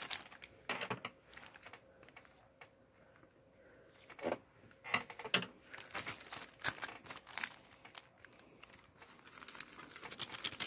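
Clear plastic bag packaging of a paddle ball toy crinkling and rustling as hands tear it open and pull the paddle out, with irregular sharp crackles that are loudest around the middle.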